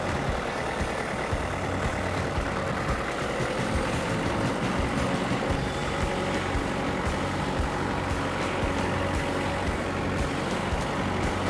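Tractor engine running steadily under load as it reverses, carrying a sawmill section on its front forks.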